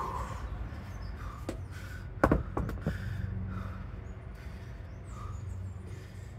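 A person breathing hard through a workout circuit, with one sharp knock about two seconds in, the loudest sound here, followed by two lighter clicks.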